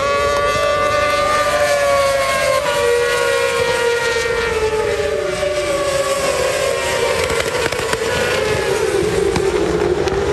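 A pack of World Superbike racing motorcycles at high revs, several engines overlapping, their shared pitch sliding slowly lower over the seconds.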